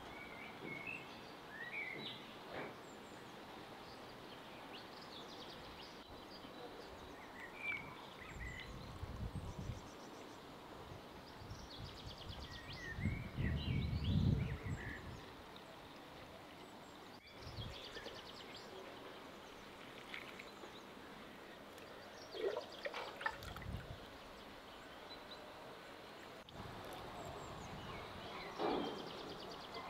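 Water poured from a jug into glass jars packed with garlic bulbs, coming in several spells and loudest about halfway through. Small birds chirp throughout.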